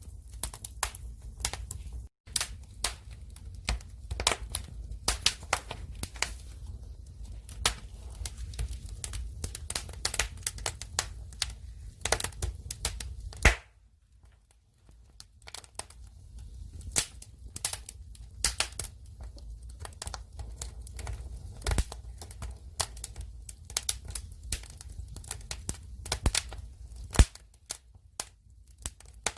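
Firewood fire crackling: irregular sharp snaps and pops from the burning wood over a low rumble of the flames. A few louder pops stand out, and the sound thins out for a second or two about halfway through.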